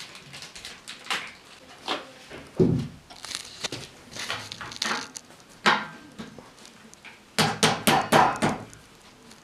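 Metal frame and legs of an IKEA FREDDE desk being handled and fitted during flat-pack assembly: scattered clicks and knocks, a dull thump about two and a half seconds in, and a quick run of clicks near the end.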